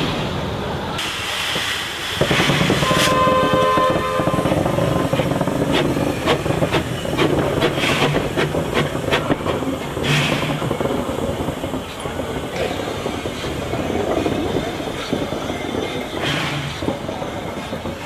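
Victorian Railways NA-class 2-6-2 narrow-gauge steam tank locomotive hissing steam, with a whistle blast of about a second about three seconds in, followed by a run of sharp knocks.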